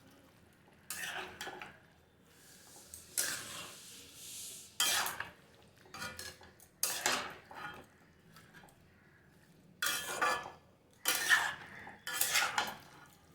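A spatula scraping and stirring spiced chicken and vegetables in a cooking pan, in about seven separate strokes with pauses between them: the curry being stirred as it fries down with its masala.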